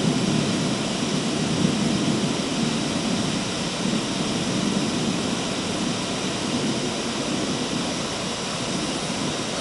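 CNC wood router with its spindle running and cutting into a sheet of board as the gantry moves: a steady rushing machine noise with a low hum underneath.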